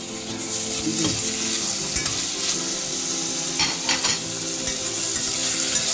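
Sliced tomatoes and onions sizzling in hot oil and ghee in a stainless steel pressure cooker. The sizzle builds as the tomatoes go in and then holds steady, with a few sharp clinks of the steel spoon or bowl against the pot.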